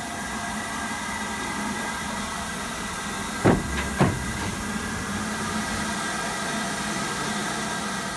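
An LMS Black Five steam locomotive hissing steam steadily, with two sharp knocks about half a second apart midway through.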